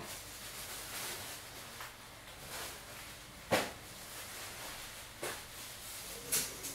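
Steady hiss of a desktop PC's cooling fans and DVD drive running, with a few short knocks and rustles; the loudest comes about three and a half seconds in, and two smaller ones come near the end.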